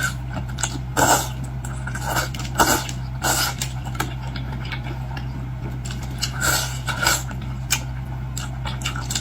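Close-miked eating of boiled seafood: irregular crunches, clicks and smacks of biting and chewing, over a steady low hum.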